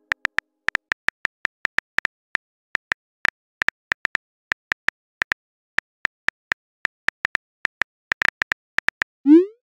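Phone keyboard click sound effects as a text message is typed: a quick, irregular run of short ticks, about four a second. Near the end comes a short rising whoosh as the message is sent.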